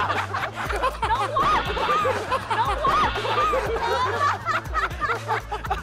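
Several people laughing over background music.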